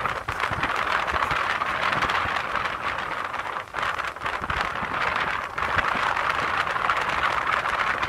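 Rough surf breaking and washing up onto the beach: a steady rushing noise, with irregular low buffets underneath.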